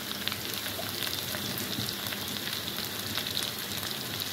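Sliced ivy gourd (kundru) frying in mustard oil in a pan: a steady sizzle with many small crackles.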